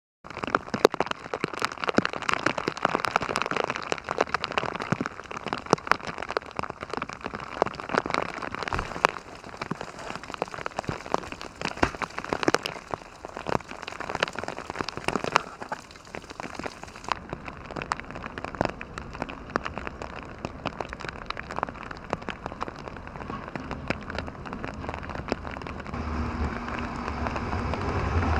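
Freezing rain pattering on ice-glazed surfaces, a dense patter full of sharp ticks. Near the end a vehicle's low rumble rises beneath it.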